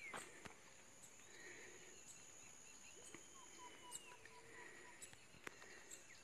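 Near silence: faint natural background with a steady high insect hum, and a short run of faint repeated notes about halfway through, like a distant bird.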